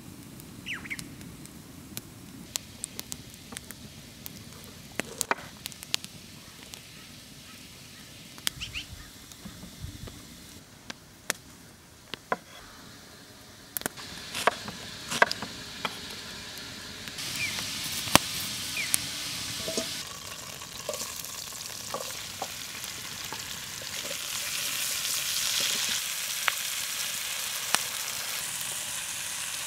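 Vegetables frying in a cast-iron pan over an open fire: a sizzle that grows louder over the second half. Sharp clicks and taps sound throughout, including knife strokes on a wooden chopping board.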